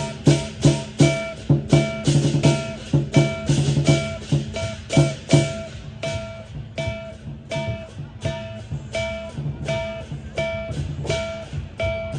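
Music with a strummed guitar and a steady, even beat.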